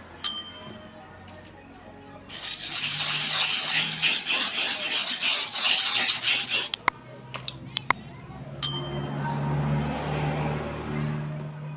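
Barber's clipper blade being sharpened: a few seconds of gritty scraping of metal on an abrasive surface, with a ringing metallic ding just at the start and another about two-thirds through, and a few small clicks.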